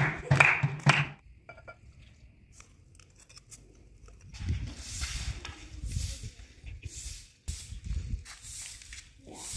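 A long straw hand broom sweeping a stone-paved floor in repeated swishing strokes, about one or two a second, starting about halfway through. A snatch of music plays briefly at the start.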